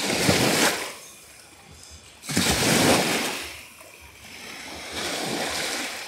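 Small Lake Ontario waves breaking and washing up over a sand beach in three surges, the loudest about two and a half seconds in.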